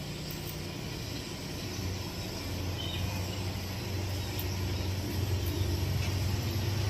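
Low, steady engine hum that slowly grows louder.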